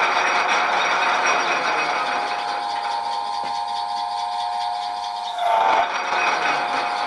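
South Bend 14-1/2" lathe running under power, its back-end gear train noisy with a steady whine and rattle, which the owner thinks needs a little grease. A short louder burst comes a little past five seconds in.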